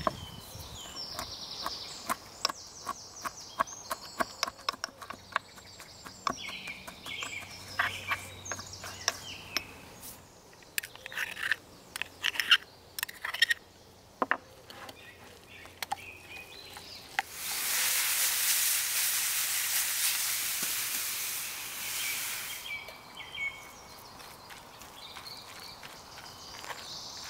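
Light clicks and taps of food being handled: pine nuts dropping into a small ceramic pot and a metal spoon working in a metal mug, with birds singing behind. About two-thirds of the way through, a steady hiss runs for around five seconds.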